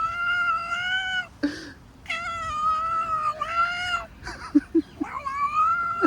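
Cat making three long, drawn-out meows, each held steady for one to two seconds, with a few short chirps between them. These are her odd vocal reaction to having her back scratched.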